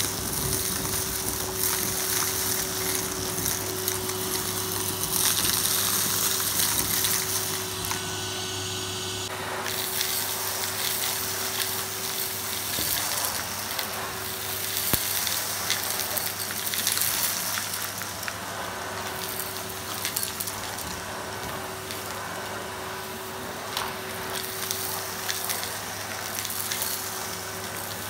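Henry tub vacuum cleaner running steadily, its motor whine and hum under a dense crackle and rattle of gritty debris being sucked up through the metal wand.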